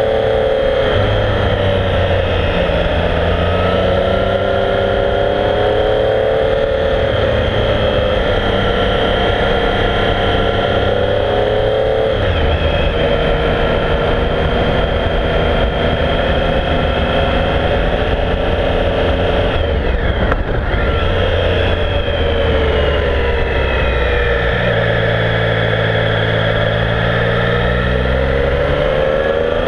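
Triumph Speed Triple's three-cylinder engine running hard under way, its revs rising and falling over and over with throttle and gear changes. About twenty seconds in the note drops away and picks up again, and near the end it climbs steadily.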